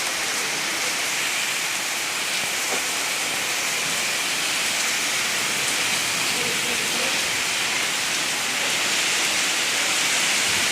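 Steady hiss of a windstorm, even throughout and growing slightly louder near the end.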